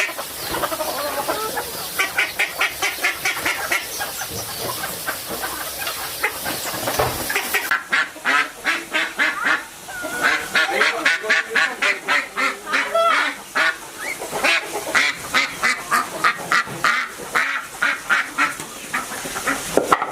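A flock of domestic waterfowl calling, with rapid runs of repeated honking calls, several a second.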